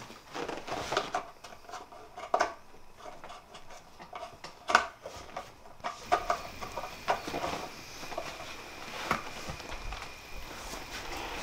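Irregular clicks and knocks of small gear being handled on a desk, a couple of sharp ones standing out. About halfway through, a faint steady high tone and a light hiss come in.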